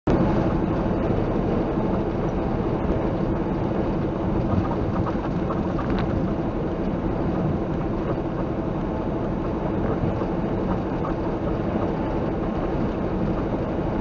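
Semi-truck engine and road noise heard inside the cab at highway cruising speed: a steady, loud drone with a constant hum, and a single brief click about halfway through.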